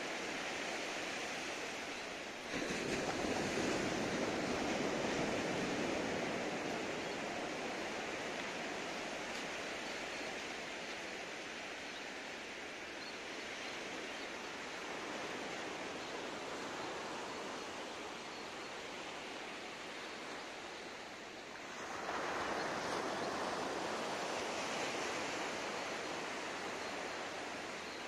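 Surf washing onto a sandy beach, a steady rush of water that swells sharply as a wave breaks about two and a half seconds in and again about twenty-two seconds in.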